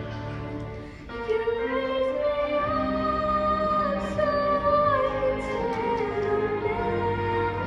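A young girl singing long held notes into a microphone over instrumental backing music. The backing plays alone for about the first second before her voice comes in.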